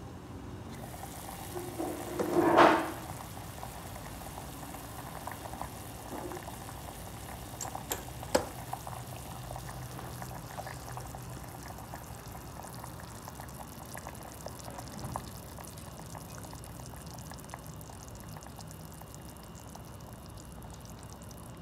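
Soy sauce broth bubbling at a simmer in a stainless steel stockpot with a whole chicken in it, a steady liquid bubbling. A brief loud clatter comes about two and a half seconds in, as the lid is lifted, and a few sharp clicks come around eight seconds.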